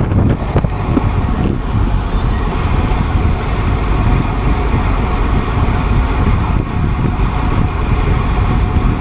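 Heavy, steady wind noise buffeting a microphone that is moving at road-bike racing speed, around 48 km/h. A brief faint high chirping sounds about two seconds in.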